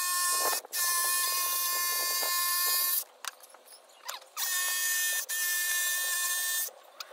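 DeWalt cordless jigsaw cutting a vinyl floor plank, its motor and blade giving a steady high whine. It runs in stretches, cutting out briefly just after the start, for about a second and a half around three seconds in, and again near the end.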